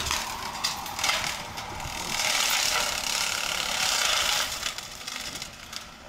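Brush Wolf 42X brush cutter attachment, driven by a hydraulic piston motor on an excavator arm, chopping through brush and saplings. Its spinning blade throws a dense crackle of snapping wood and flying chips, loudest in the middle and thinning near the end.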